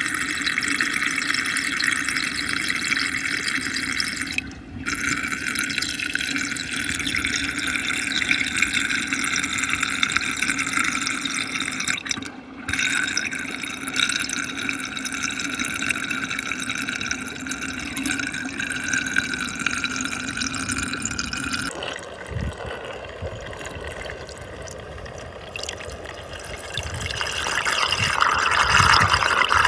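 Muddy water swirling and draining down a fast whirlpool vortex, a steady rush of water. It briefly drops out twice and changes about two-thirds of the way through, growing louder near the end.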